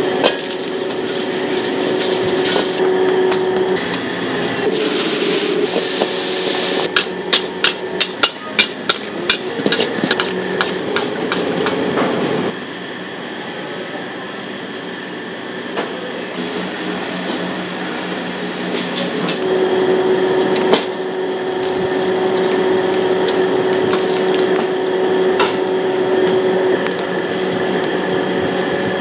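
Stir-frying in a wok over a charcoal stove: a metal ladle clangs against the wok in a quick run of strikes from about seven to eleven seconds in, after a burst of sizzling. A steady hum runs underneath.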